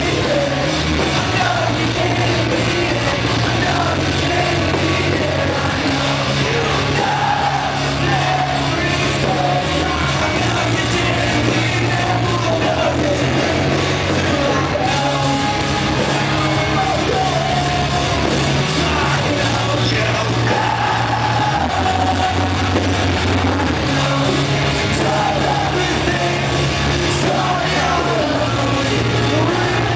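Live rock band playing: a lead singer's voice over electric guitar, bass and drums, with held bass notes shifting every few seconds.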